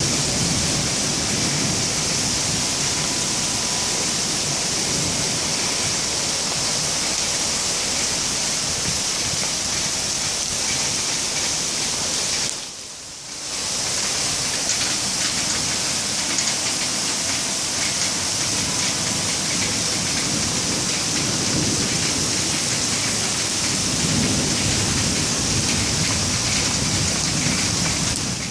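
Heavy downpour: a dense, steady hiss of torrential rain, with low rumbles of thunder in a thunderstorm, heavier in the last few seconds. The sound briefly drops away for about a second near the middle.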